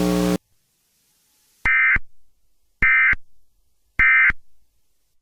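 Emergency Alert System end-of-message tones: three short, buzzy bursts of SAME digital data about a second apart, signalling the end of the alert. A steady hum cuts off just before them.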